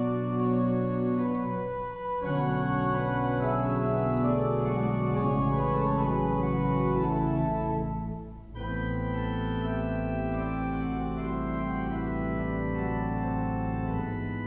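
Willis/Walker pipe organ playing slow, sustained chords. A deep pedal bass comes in about five seconds in. The sound briefly thins twice between chords.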